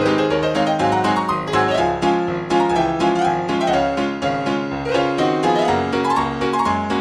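Solo piano music: a quick run of melody notes climbing and falling over a steady lower accompaniment.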